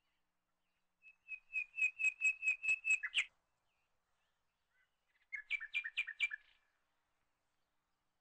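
A bird chirping: a quick run of about ten repeated high chirps, roughly four a second, then after a pause of about two seconds a shorter run of about five sharper chirps.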